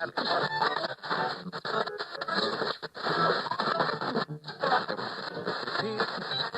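A radio being tuned across the dial: static and hiss mixed with brief snatches of broadcast music and voices, with short dropouts between stations.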